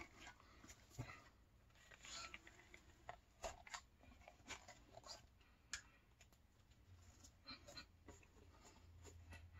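Faint, scattered rubbing and handling noises of a urethane Batman cowl being tugged down over a head, in near silence.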